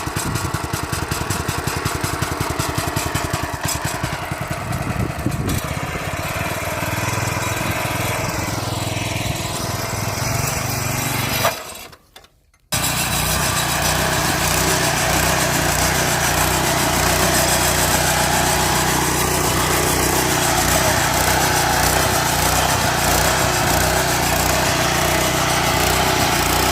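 Kawasaki VMTB70 brush cutter's small petrol engine running. Partway through, the sound drops out for about a second, then the engine runs steadily at speed.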